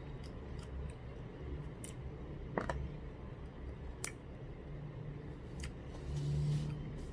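Scattered light clicks of cutlery against a plate while eating, about seven in all, with a brief low hum near the end.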